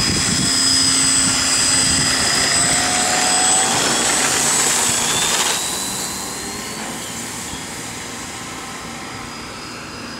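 Electric RC P51 Mustang's 970kv outrunner brushless motor spinning a 14x8 wooden propeller for the takeoff run and climb-out: a loud, steady whine that drops off about five and a half seconds in and stays lower.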